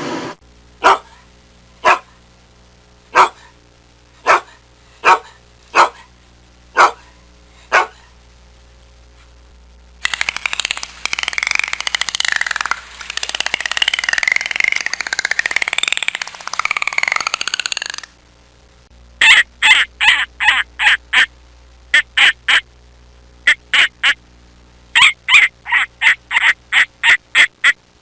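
Ducks quacking: single quacks about once a second, then a dense clamour of many birds for about eight seconds, then quick runs of quacks.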